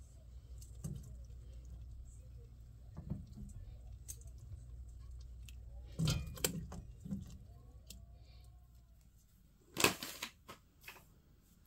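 Metal tongs clinking and scraping against a stainless steel pot of saucy braised pork backbone over a steady low hum; the loudest clinks come about six seconds in. Near the end, a single sharp clatter is followed by a few lighter knocks.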